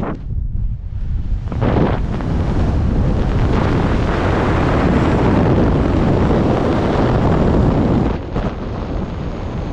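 Loud rushing noise of wind buffeting the microphone, easing off about eight seconds in.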